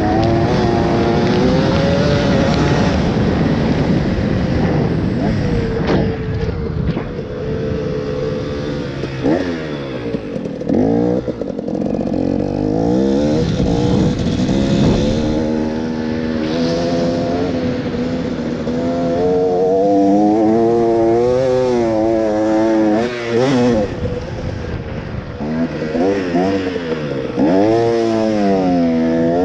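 KTM two-stroke dirt bike engine being ridden in soft sand, its pitch rising and falling over and over as the throttle is opened and closed under heavy load.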